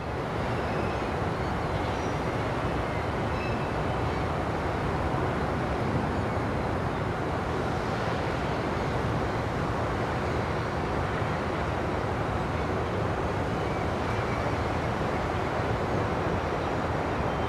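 Steady outdoor background noise, an even low rumble with hiss that does not change.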